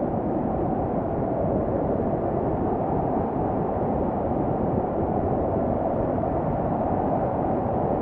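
Snowstorm ambience: wind blowing steadily, a deep, even noise without separate gusts or other sounds standing out.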